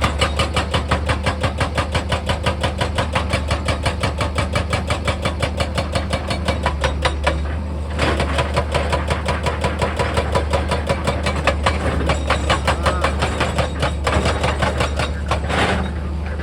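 Heavy machine's hydraulic percussion tool hammering rock in rapid, even blows, about five a second, over a steady diesel engine hum. The hammering pauses briefly near the middle and stops shortly before the end.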